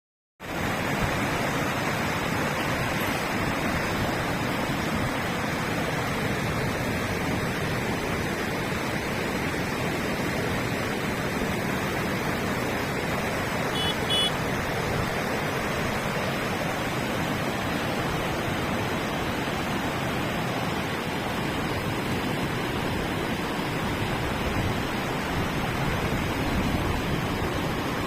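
River water rushing steadily, a dense even roar of flowing water. A brief faint high chirp sounds about halfway through.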